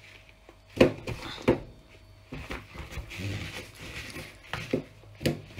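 A scouring sponge scrubbing the stainless-steel top of a gas hob around the burner holes, a rubbing scratch broken by several sharp knocks.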